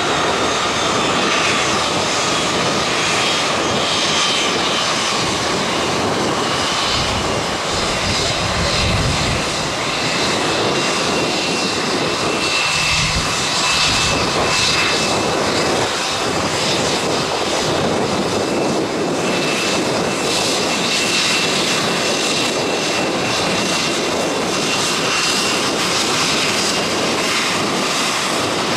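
Aircraft engines running loud and steady for the whole stretch, a dense rushing noise with a faint high whine over it.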